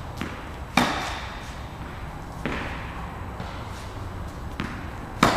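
Tennis balls struck by racquets in a rally: sharp pops, the loudest about a second in and near the end, a softer one midway, with fainter ticks of the ball between.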